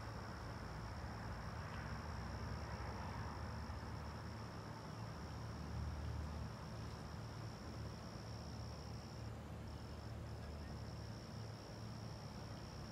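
Crickets trilling: one high, unbroken trill with two short breaks about three-quarters of the way through, over a low steady rumble.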